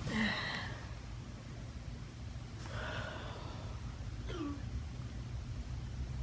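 A person's short, breathy sounds without words, three of them, the last one falling in pitch, over a steady low hum.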